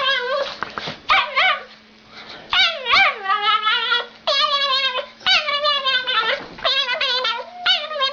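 A dog whining and yelping in a quick run of high, wavering cries, most of them falling in pitch at the end: begging for food.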